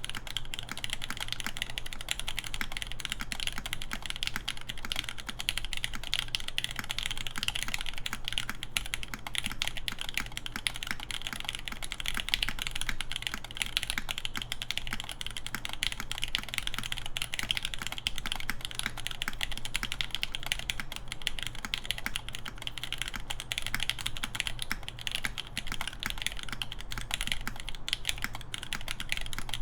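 Continuous fast typing on a mechanical keyboard with lubed Nixdorf/Cherry MX Black linear switches, an aluminum plate, o-ring mount and Cherry G81-3100 keycaps. It gives a steady stream of key clacks with no pauses.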